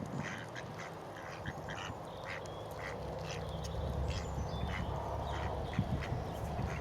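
Ducks quacking in a series of short calls over a low steady rumble that grows louder about halfway through.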